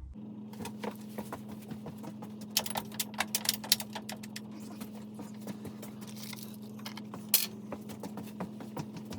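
Small metal parts and tools clinking and rattling in irregular clicks, busiest a few seconds in, with one louder clink near the end, over a steady low hum.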